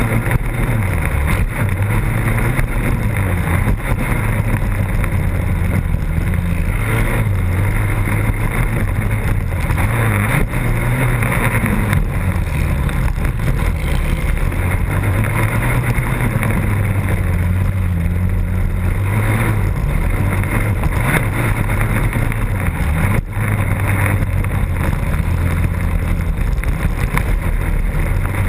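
Racing quad's engine heard up close from onboard, running hard under race load, its pitch rising and falling as the throttle opens and closes. A sharp knock sounds once near the end.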